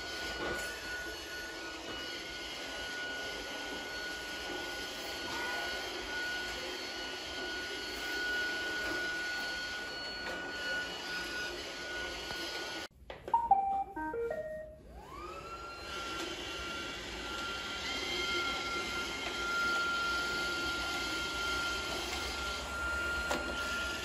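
Restored iRobot Roomba robot vacuum running, its motors giving a steady whine over a brushing hum. About 13 seconds in the sound cuts out, a short run of electronic beeping notes plays, and the motor whine rises back up to speed and runs steadily again.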